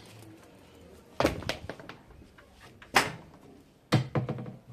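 Three sharp thuds about a second apart, each followed by a few lighter knocks: household handling such as a cabinet door or shoes being set down.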